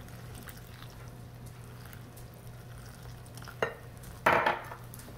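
Wooden spoon stirring a dry flour mixture in a glass bowl as water is worked in, a faint scratchy stirring. About three and a half seconds in, a sharp knock as the glass measuring cup is set down on the stone counter. Just after four seconds comes a louder, rasping scrape of the spoon through the mix against the bowl.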